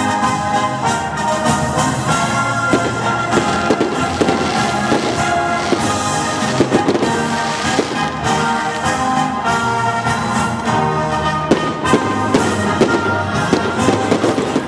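Fireworks bursting and crackling again and again, over loud music.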